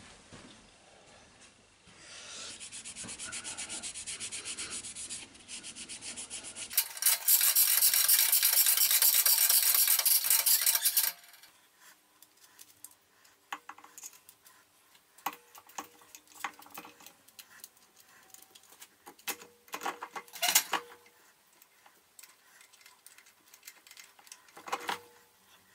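Steady rubbing and scrubbing on a metal surface while the dividing head's mounting face is cleaned, getting much louder for a few seconds before it stops. Then scattered metallic clicks and clinks, with two louder knocks near the end, as the heavy dividing head is set and fastened on the milling machine table.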